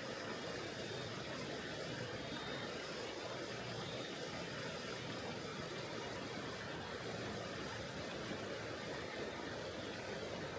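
Mountain river flowing: a steady, even rush of water that does not change.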